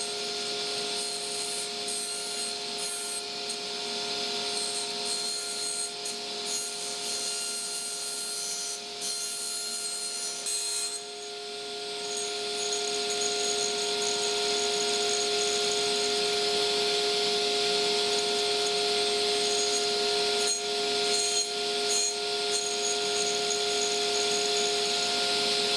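Table saw running steadily, with wood rasping against the blade the whole time; the rasping grows louder about halfway through.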